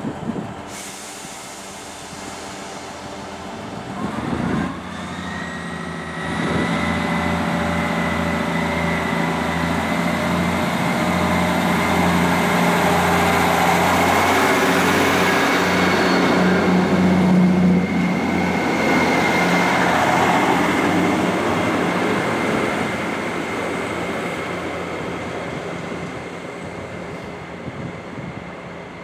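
ScotRail Class 158 diesel multiple unit pulling away from the platform. About six seconds in its engines open up with a rising whine that settles into a steady drone. It is loudest as the carriages pass, then fades as the train draws away.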